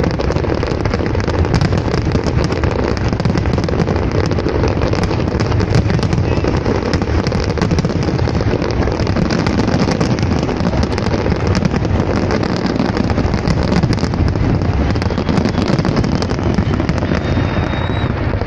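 Fireworks going off without pause: a dense run of pops and crackles over a steady rumble.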